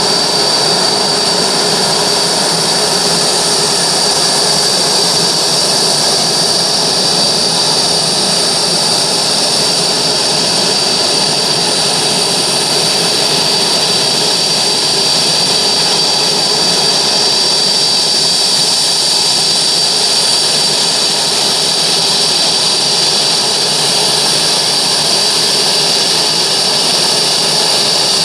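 Boeing 787-9 turbofan jet engines running steadily, with a constant high-pitched whine over a loud, even rush.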